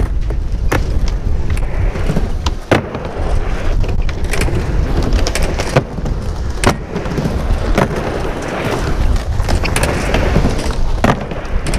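Skateboard wheels rolling with a steady low rumble, broken by a series of sharp clacks of boards striking the ramp surface.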